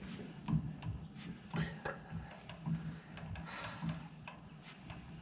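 Scattered light metallic clicks and knocks, a few a second at irregular intervals, from a hub puller and tools being handled and fitted to a car's rear hub.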